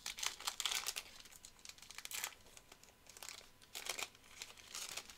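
A foil trading-card pack wrapper (2020 Topps Finest) being torn open and crinkled by hand, in several short bursts.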